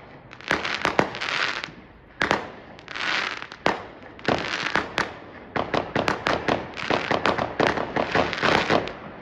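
Fireworks going off: sharp bangs with crackling hiss between them, thickening from about halfway through into a fast, near-continuous volley of bangs.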